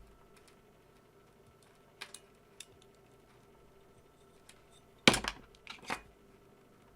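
A few sharp clicks, then a louder short clatter of small hard objects a little past halfway, like plastic parts and tools being handled on a workbench.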